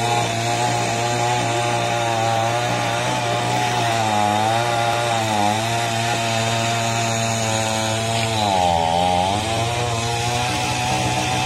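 Chainsaw running at high speed and cutting wood. Its pitch sags briefly twice as the chain bites in, then drops deeply for about a second near the end before recovering. A steady lower engine hum runs beneath, from the backhoe loader's diesel.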